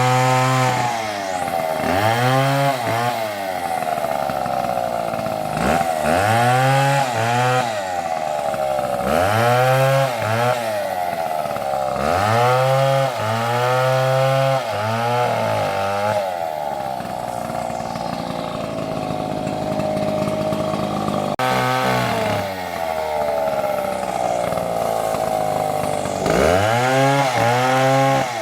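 Large chainsaw running hard while cutting into a tree trunk, its engine pitch repeatedly rising and sagging back every two to three seconds as the chain bites into the wood. It holds a steadier, lower note for a few seconds in the middle before the swings return near the end.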